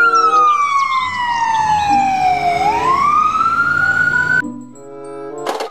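Ambulance siren on a slow wail, its pitch falling for a couple of seconds and then rising again, with faint music underneath. The siren cuts off suddenly about four and a half seconds in, and a short bright jingle and a brief burst of noise follow near the end.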